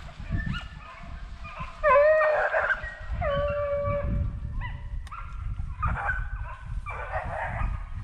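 Deer hounds baying while running a deer: a string of long, drawn-out bawls, one after another, over a low rumble.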